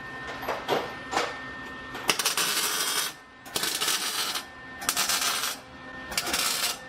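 Welder laying a run of short welds: four bursts of crackling arc, each just under a second, with brief pauses between them, after a few lighter clicks in the first two seconds.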